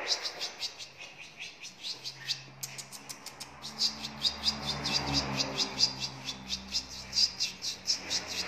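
Swiftlets chirping in a swiftlet house: rapid, evenly repeated high chirps, about five a second, that grow denser a few seconds in.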